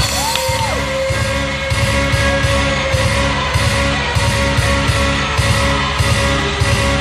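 Loud backing music with a steady beat, played for a dance routine.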